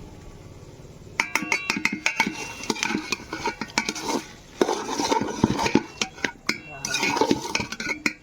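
Metal spoon or ladle clanking and scraping against a metal cooking pot in quick, irregular strikes, starting about a second in, as meat is stirred in it.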